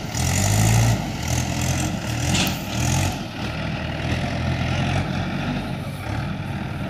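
Diesel farm tractor's engine running under load as it pulls a trailer loaded with soil, its low drone rising and falling slightly as it passes close by.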